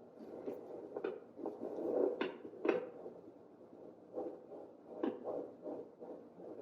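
Fetal heartbeat through a pocket fetal Doppler's speaker: a fast whooshing pulse at about 150 beats a minute, the normal rate she reports for her 14-week baby. A few sharp clicks from the probe cut through it.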